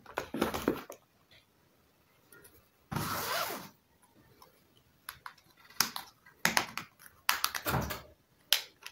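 Plastic housing of a keypad feature phone being pried open by hand: a short scrape about three seconds in, then a run of sharp plastic clicks as the case clips let go.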